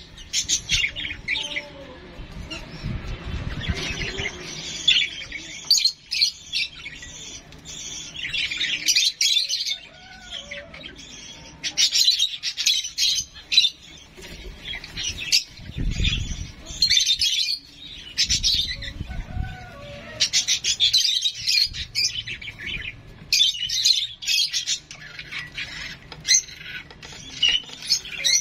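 Young pet bird chirping in repeated clusters of rapid, high, scratchy calls. Two low rumbles come in, about four and about sixteen seconds in.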